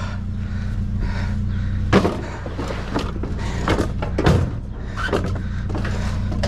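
A vehicle engine idling with a steady low hum, and several sharp knocks and clunks over it, the loudest about two seconds in and again around four seconds in.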